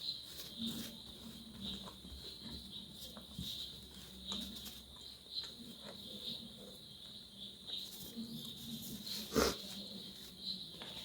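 Close-miked chewing and mouth sounds of someone eating fried rice, irregular and soft, with one sharper click about nine seconds in.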